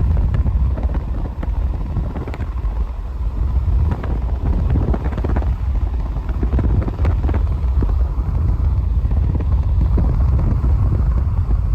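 Loud, steady low rumble of wind buffeting the microphone and road noise from a moving car, with scattered light knocks.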